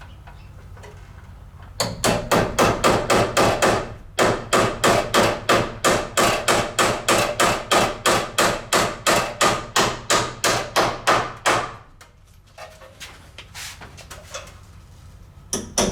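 A hammer struck in a fast, even run of about four blows a second, with a brief break a couple of seconds in. It stops about twelve seconds in and starts again near the end.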